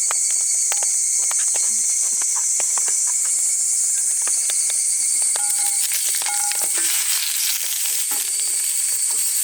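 Food sizzling in a pan over a campfire, a steady high hiss with many small pops and crackles. There are two short clinks about halfway through.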